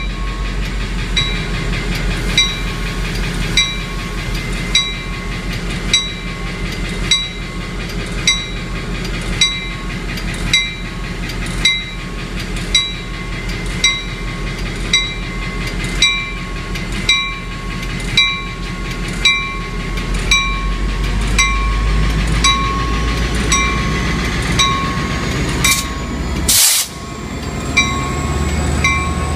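EMD F40PH diesel locomotive departing, its engine running rough with a bad injector, the rumble growing heavier as it loads up. Over it a bell rings evenly, about once every second and a bit. There is a short burst of noise near the end.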